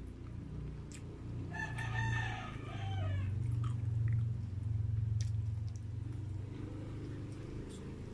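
A rooster crows once, starting about a second and a half in: a drawn-out call that drops in pitch at the end. Under it runs a steady low hum, with a few soft clicks from eating.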